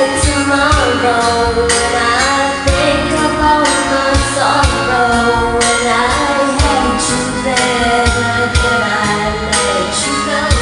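Music with a steady drum beat and a singing voice over a melody.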